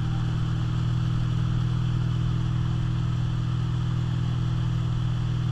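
Moomba ski boat's engine running steadily at towing speed, a steady low hum over the rush of the wake.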